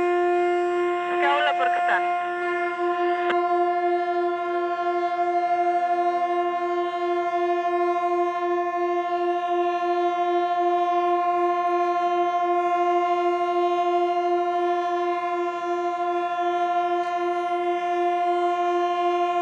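Ships' horns sounding together in one long, sustained chord. A wavering tone over them cuts off about three seconds in, and the remaining horns hold steady with a slight pulsing in the lowest note.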